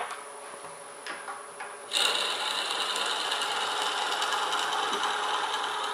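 Wood lathe running with an oak blank in the pin jaws, then from about two seconds in a 7 mm drill bit boring into the spinning oak with a steady, gritty cutting noise that eases off near the end.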